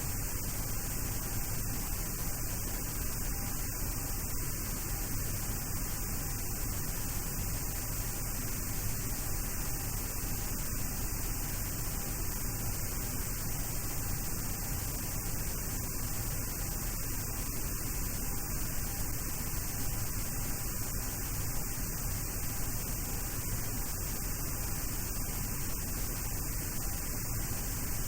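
Steady background noise in a Boeing 737-800's cockpit: an even hiss with a low hum underneath, unchanging throughout.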